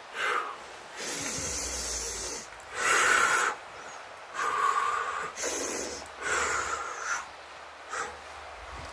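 A person breathing loudly and deeply through the nose and mouth, about seven noisy in- and out-breaths, some short and sharp, one drawn out for over a second.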